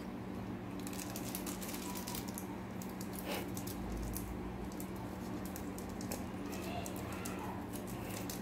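Thin plastic geladinho bag crinkling and crackling in irregular little clicks as its neck is twisted and knotted by hand.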